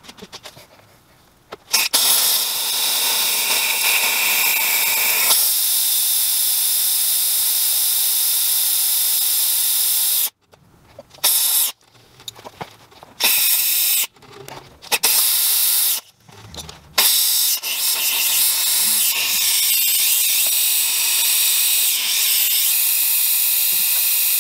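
Compressed air hissing out of the drain valve on the bottom of a Craftsman 30-gallon air compressor tank, blowing out water that has built up in the tank. The hiss starts about two seconds in, breaks off and returns several times in the middle, then runs steady again.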